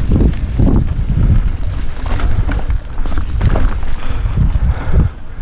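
Wind buffeting a helmet-mounted GoPro's microphone while riding a mountain bike down dirt singletrack, with gusty low rumble and short clicks and rattles from the bike and tyres on the trail.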